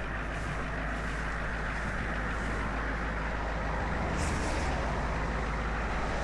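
Steady road noise of highway traffic passing, over the low hum of an engine running, with a short hiss about four seconds in.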